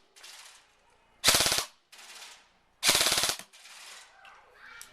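G&G GR16 airsoft electric gun firing two short full-auto bursts on an 11.1 V LiPo battery, each a rapid, even rattle of shots lasting about half a second. The rate of fire is very high, which the shooter puts at about 24 BBs a second.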